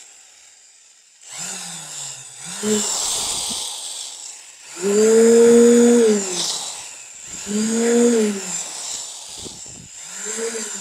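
Small engine-driven machine running in surges, its pitch dipping and recovering every couple of seconds as if under varying load, with a hiss over it. It is loudest about five seconds in, after a brief quiet start.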